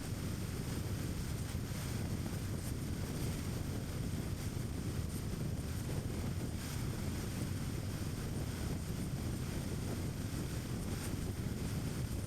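Steady low rumble of tyre and road noise from a car driving at a constant speed, with no change in pace.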